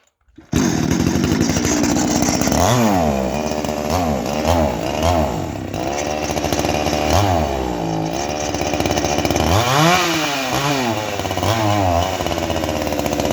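Two-stroke chainsaw engine running just after a choke start. It cuts in suddenly about half a second in, then is revved up and let back down several times in quick succession, a few seconds in, around the middle and again near the end, settling between revs.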